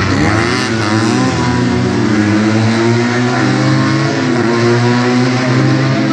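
Car engine revving and running: its pitch rises and falls in the first second or so, then holds fairly steady.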